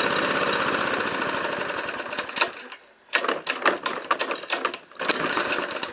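Abused Briggs & Stratton Sprint 375 lawnmower engine running briefly with a rapid, even clatter that fades away over about two seconds as the engine dies. Scattered sharp metallic clicks and knocks follow.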